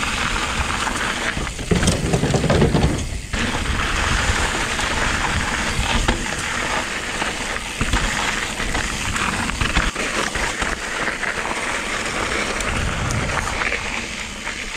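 Electric mountain bike ridden along a loose dirt trail: a steady rush of tyre and wind noise with frequent clicks and rattles from the bike.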